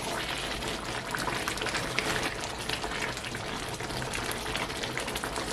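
A full pot of egusi pepper soup bubbling on the stove as it is stirred together: a steady wet crackle of many small pops.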